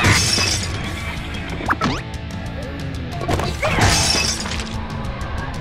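Background music with two sudden breaking crashes of objects being crushed by a car, one right at the start and the other about four seconds in.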